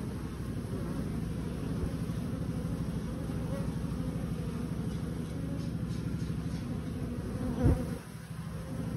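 Honeybees buzzing in a steady low drone. Near the end there is a single thump, and the buzz dips briefly after it.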